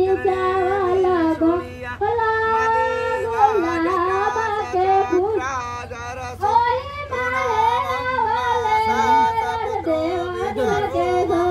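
High women's voices singing a slow wedding song, with long held and gliding notes and short breaths between phrases, over a steady low hum.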